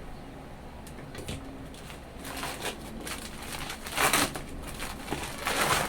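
Parcel packaging being handled and crinkled, with louder rustling about four seconds in and again near the end.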